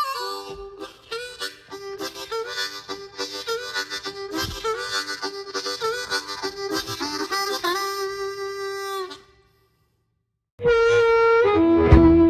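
Harmonica playing a blues riff in short, repeated notes with bends. It stops about nine seconds in and starts again louder about a second and a half later.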